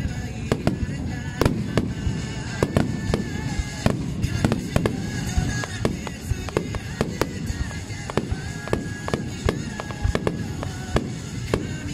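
Aerial firework shells bursting in quick, irregular succession, about two or three sharp bangs a second, over a steady rumble, with music playing beneath.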